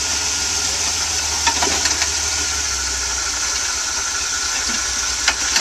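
Jeep CJ engine running steadily near idle as the rock crawler eases over boulders, with a few brief clicks about a second and a half in and again near the end.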